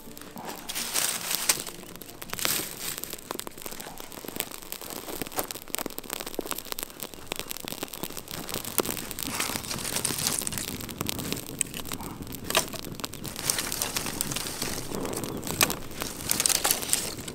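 A campfire of dry twigs and brushwood catching and burning, crackling with many quick snaps and pops as the thin branches take.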